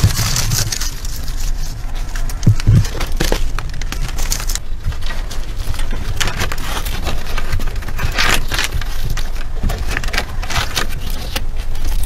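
Hand work on wood: sticks rustling and knocking as they are bound into a bundle, then a knife scraping bark off a wooden pole in short, irregular strokes.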